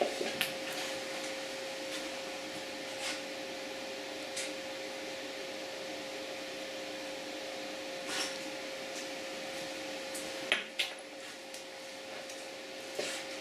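Steady fan-like whir with a constant hum tone, with a few light clicks and taps of small parts and tools being handled now and then, two sharper ones close together near the end.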